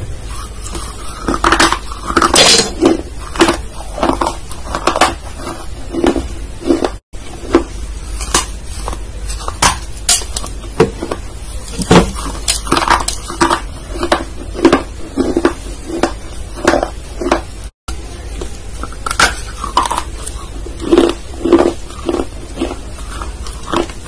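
Close-miked ASMR mouth sounds: irregular wet smacks and clicks of the lips and mouth, several a second, over a steady low hum.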